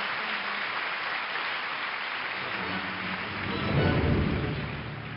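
Applause with faint music underneath. A deep rumble swells about three and a half seconds in, then the sound fades away.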